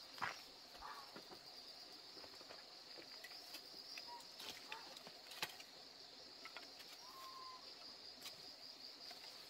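Steady, high-pitched insect chorus, with scattered faint clicks and knocks of someone handling wood at a hearth.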